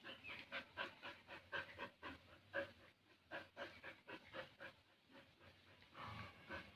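Dog panting in quick, short breaths, several a second, with a rougher, louder stretch near the end.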